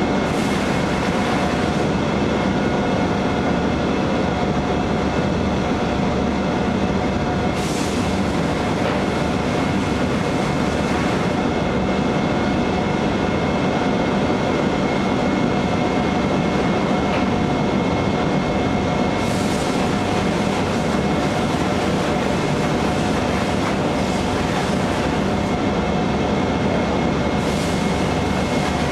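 Steady machinery noise of a powder coating line, the overhead conveyor and plant running at an even level with a few faint steady tones. Three brief high hisses break in, about a third of the way in, two-thirds of the way in and near the end.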